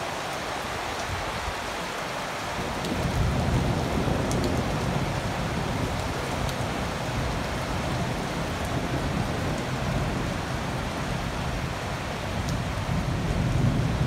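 Heavy rain falling steadily, an even hiss of water on roofs and surfaces. A deeper low rumble comes in about three seconds in and carries on under the rain.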